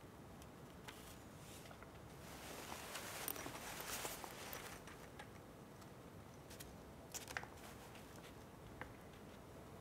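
Quiet room tone with faint rustling that swells for a couple of seconds about a third of the way in, and a few soft clicks in the second half.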